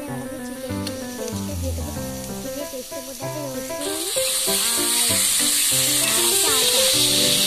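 Raw chicken mince sizzling as it fries in hot oil in a pan, the sizzle growing much louder about halfway through as the mince spreads into the oil, over background music.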